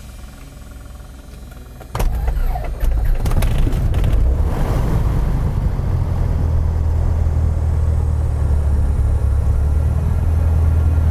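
Piper PA-28-180's Lycoming O-360 four-cylinder engine being started, heard from inside the cockpit: about two seconds in the starter cranks and the engine catches with a few uneven firings, then it settles into a steady idle.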